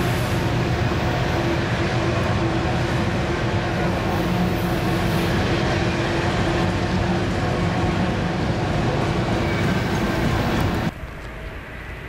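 Empty autorack freight cars rolling past close by: a steady rumble of steel wheels on rail with a faint steady hum. About eleven seconds in it cuts off abruptly to a much quieter background.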